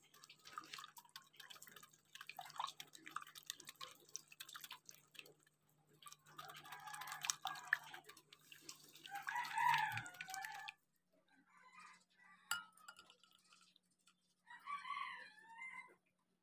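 Wire whisk beating batter in a glass bowl: quick clicks and scrapes of wire on glass with a wet slosh, stopping abruptly a little over ten seconds in. A pitched call sounds twice in the background, the louder one just before the whisking stops.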